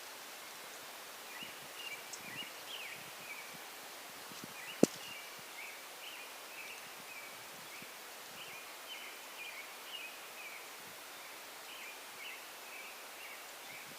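Bird chirping in short repeated phrases over a steady hiss, with one sharp click about five seconds in.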